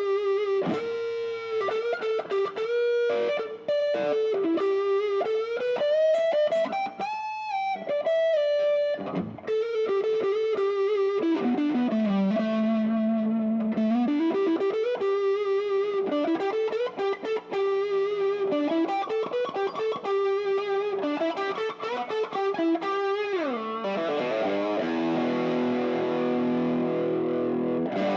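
Tokai Silver Star TSS-38 electric guitar played through an effect with a little distortion: single-note lead lines with slides, bends and vibrato, and a long slide down a few seconds before the end into sustained chords.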